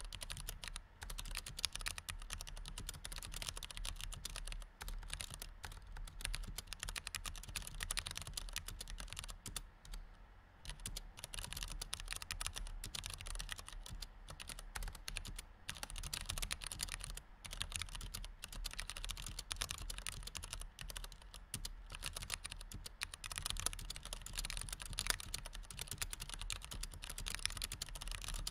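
Fast, continuous typing on a computer keyboard with low-profile chiclet keys: a dense, irregular run of key clicks, with a brief pause about ten seconds in.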